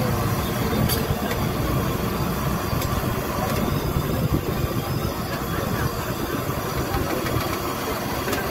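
Steady low rumble with a hiss over it from a street-side deep-frying station: a gas burner under a wok of hot oil as fritters fry and are lifted out with a wire-mesh strainer. There is one sharp clink about a second in.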